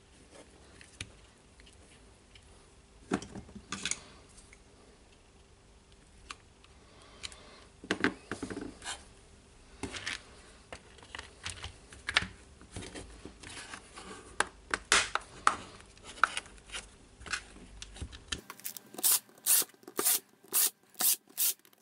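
Plastic drill-housing parts being handled and fitted together: scattered clicks, knocks and rubbing. Near the end, a quick, even run of sharp clicks, about three a second, as the housing screws are driven in.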